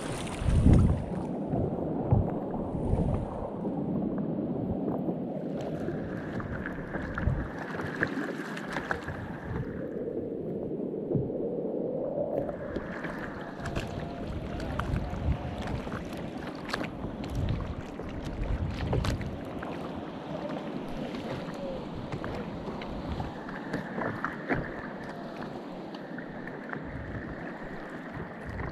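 Choppy sea water slapping and lapping against the hull of a plastic kayak, with irregular small knocks and splashes, and wind on the microphone.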